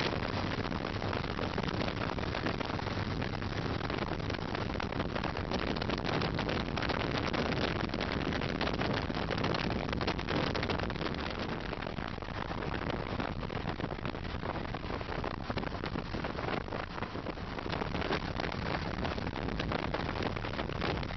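Steady wind rush and road noise from riding at highway speed, with wind buffeting the microphone and a vehicle engine running underneath.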